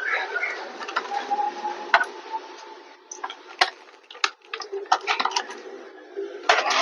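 A screwdriver working the small screws of a laptop's bottom panel: a faint background hiss with irregular sharp clicks and taps, several in quick succession in the second half.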